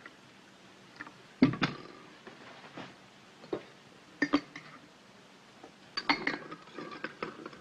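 A dozen or so light clinks and knocks of china dishes, cutlery and a metal coffee pot handled at a breakfast table, the loudest a double knock about a second and a half in.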